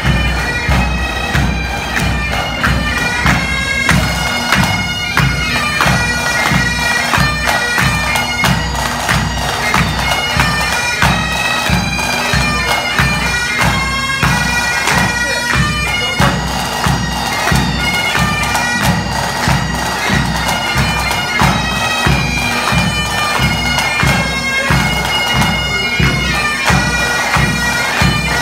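Pipe band playing: Highland bagpipes sound a melody of changing notes over their steady drones, with a regular beat of bass and snare drums underneath.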